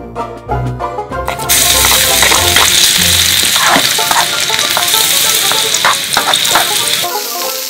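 Chopped pork and garlic dropped into hot oil in a miniature steel wok, bursting into a loud sizzle about a second and a half in, with a small metal ladle stirring and tapping the pan. The sizzle eases a little near the end.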